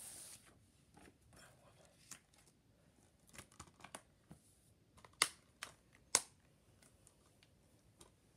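Faint handling noise: a brief rustling scrape as a paper card is picked up off the carpet, then scattered small clicks and crinkles from packaging being handled, the two sharpest a little after five and six seconds in.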